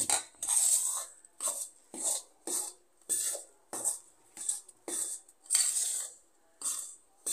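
A metal spoon stirring rice flour in a stainless steel bowl, scraping the bowl in a quick series of short strokes, a little under two a second. Boiled water is being worked into the flour to make dough.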